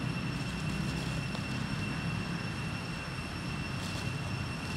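Steady low rumble of outdoor background noise, with a thin, steady, high-pitched whine above it and a few faint ticks near the end.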